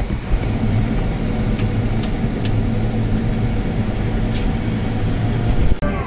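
Combine harvester running steadily while cutting soybeans: a low, even drone with a few faint ticks, breaking off for an instant near the end.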